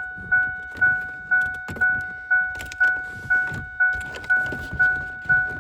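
A Ford Ranger's dashboard warning chime dinging over and over, about two dings a second. Occasional clicks and knocks come from plastic trim being pried loose.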